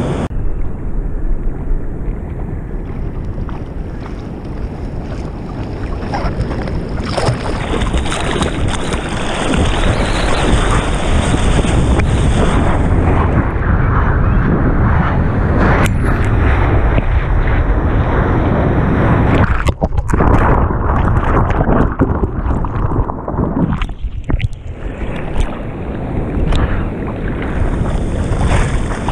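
Ocean surf and churning water close against a head-mounted GoPro in the water, with wind buffeting the microphone and sharp splashes now and then. The sound goes briefly muffled twice in the second half.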